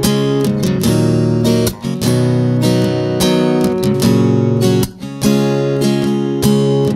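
Background music: strummed acoustic guitar playing a steady rhythm of chords.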